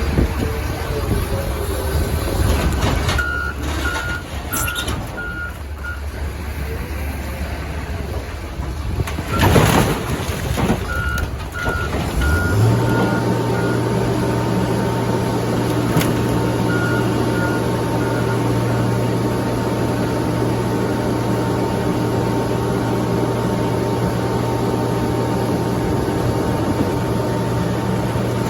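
Reversing alarm on heavy machinery, beeping in several short runs over a running engine. About nine seconds in there is a loud clatter, and from about twelve seconds a steady low engine drone holds.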